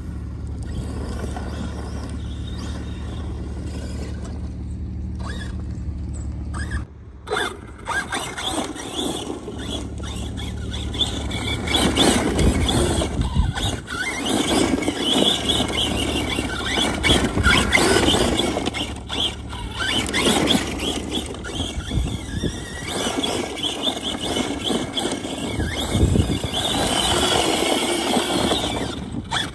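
ARRMA Big Rock 6S RC monster truck's brushless motor whining high as it is driven hard and drifted on loose dirt. The pitch and loudness surge up and down with the throttle. It is steadier for the first several seconds, then louder and rougher from about seven seconds in.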